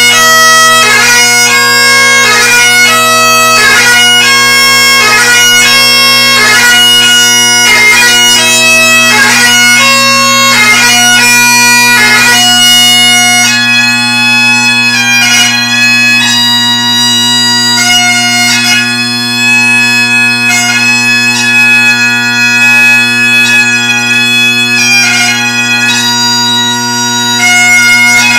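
Great Highland bagpipe playing piobaireachd: steady drones sound under the chanter melody. In the first half the notes change quickly with dense grace-note ornaments; from about halfway the melody slows to longer held notes.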